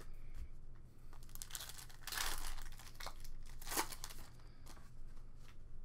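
Foil wrapper of a football card pack being torn open and crinkled by hand. There is a longer rip about two seconds in and a sharp crinkle near four seconds.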